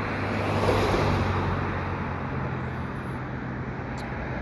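Steady rumble of road traffic, with a low steady hum underneath and a slight swell about a second in.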